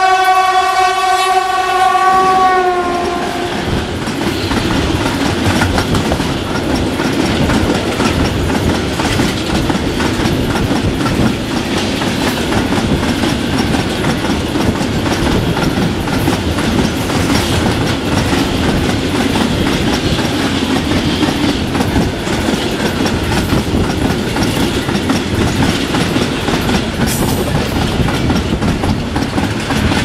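Class 232 'Ludmilla' diesel locomotive sounding a long horn blast, its pitch dipping slightly as it stops about three seconds in. The locomotive and a freight train of tank wagons then pass close by: a steady loud rumble with the clatter of wagon wheels on the rails.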